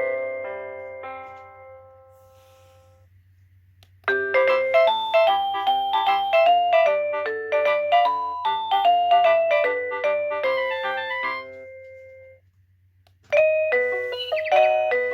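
X-Sense wireless doorbell receiver playing its chime tunes of quick bell-like notes. One tune rings out and fades over the first few seconds. A second plays from about four seconds in to about eleven and rings away. A third starts near the end. A faint steady low hum lies underneath.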